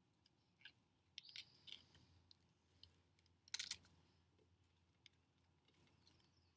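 Knife cutting through the thick base of a celery stalk: a few faint crunches, the loudest about three and a half seconds in.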